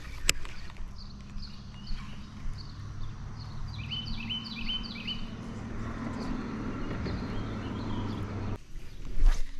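Small electric trolling motor humming steadily, then cutting off suddenly near the end. About halfway through, a bird sings a quick run of short falling chirps, and a sharp knock comes near the start and another near the end.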